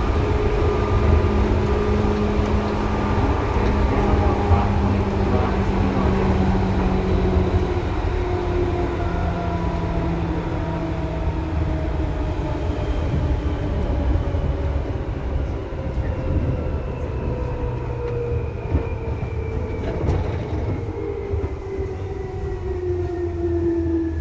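Running sound of a Seibu 2000 series electric train, heard inside the car directly over the line breaker. A steady rumble of wheels on rail runs under several whining tones from the motors and gears, which fall steadily in pitch as the train slows.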